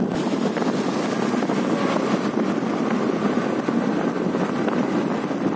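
Steady wind rush over the microphone mixed with engine and tyre noise from a moving two-wheeler at riding speed.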